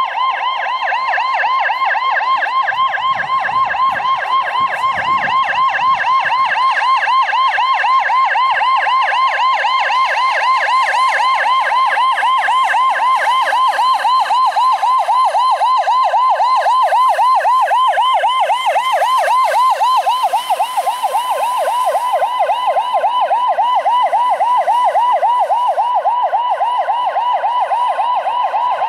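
Electronic siren sounding a rapid yelp, its pitch sweeping up and down about four times a second at a steady, loud level, from a rally course car with roof beacons driving through the stage.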